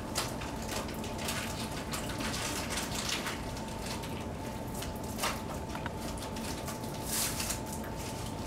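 Plastic candy wrappers crinkling in short, irregular bursts as several people unwrap candy by hand.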